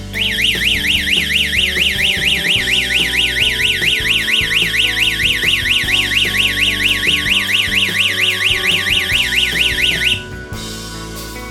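Electronic siren of a security alarm system sounding a fast up-and-down warble, about four sweeps a second, for about ten seconds and then cutting off suddenly: the alarm's automatic shut-off after its 10-second sounding. Background music plays underneath.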